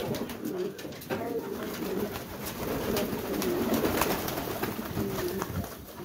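A flock of domestic pigeons cooing, many low wavering calls overlapping, with scattered light clicks among them.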